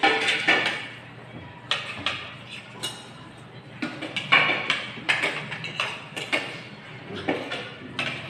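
Ladle and spoons clinking and knocking against ceramic bowls and a metal stockpot while soup is served and eaten. The knocks are sharp and irregular, about one or two a second, and some ring briefly.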